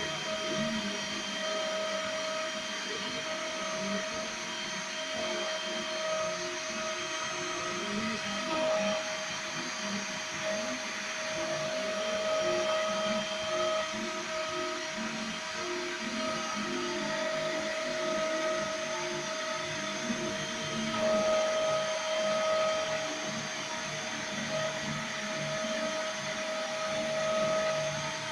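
CNC milling machine cutting a printed circuit board: the spindle runs with a steady high whine. Lower motor tones change pitch every second or so as the axes move the cutter along its path.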